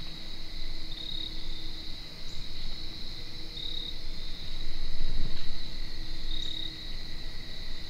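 Steady high-pitched chorus of crickets and other insects, with a slightly louder chirp repeating about every two and a half seconds. A brief low rumble rises about five seconds in.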